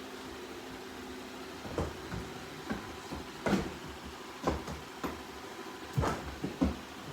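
Robot vacuum running with a steady motor hum, with a series of short, irregular knocks and clicks over it, about eight in all.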